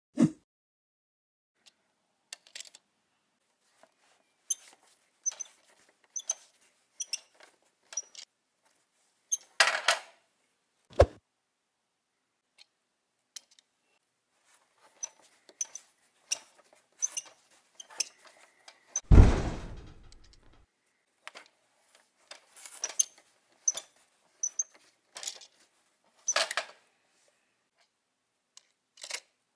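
Toy buses and a plastic toy conveyor loader being handled by hand: scattered clicks, taps and knocks of plastic on plastic, with one heavy thump about two-thirds of the way through.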